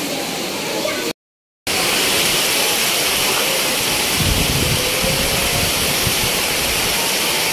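Heavy tropical downpour with strong wind: a loud, steady hiss of rain. It drops out briefly about a second in, returns louder, and a low rumble rises around four to five seconds in.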